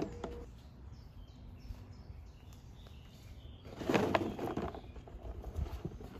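Dry kindling sticks clattering against each other and a plastic tub as they are tipped and handled, loudest about four seconds in, with a few smaller knocks near the end. Birds chirp faintly in the background.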